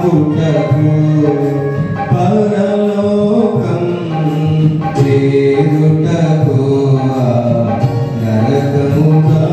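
A man singing a Telugu gospel song into a microphone, holding long notes that glide from one pitch to the next.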